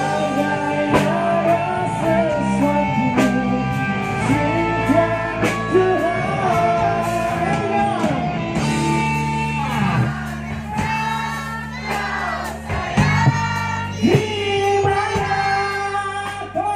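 Live rock band playing through a PA: a male singer over electric guitar, bass and drums, with a steady beat.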